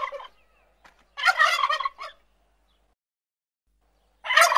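A bird calling in loud rapid, rattling bursts about a second long. One call ends just after the start, another comes about a second in, and a third starts near the end.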